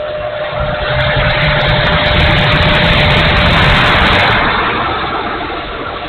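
Electric ducted fan of an E-flite F-16 70 mm RC jet whining with a steady high tone, under a rush of air over the onboard camera that swells about a second in and eases off near the end.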